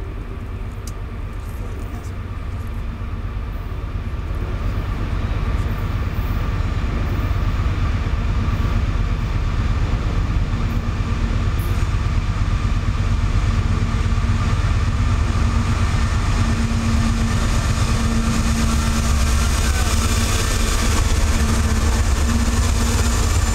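Several diesel-electric locomotives leading a CSX coal train approach and pass close by. Their engine rumble grows steadily louder as they draw near, with a steady droning tone in the second half.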